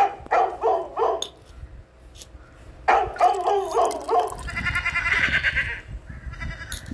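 Dog barking: a quick run of about four barks, then a second run of barks about three seconds in.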